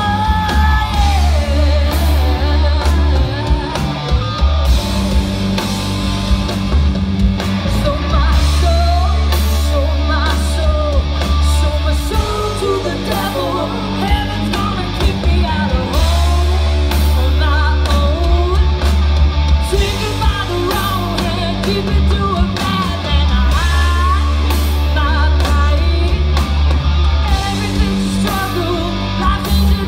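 Live '70s-style blues-rock band playing: distorted electric guitars, bass and drums, with a woman singing lead over them.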